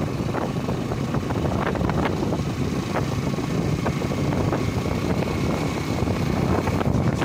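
Motorcycle running steadily along a road at speed, with wind rushing over the microphone.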